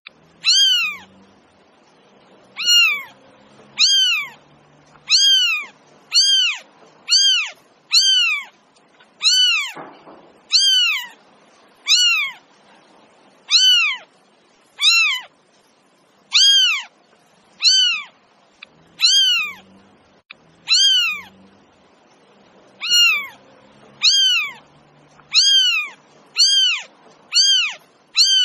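A kitten meowing over and over, short high-pitched meows about one a second, each rising and then falling in pitch.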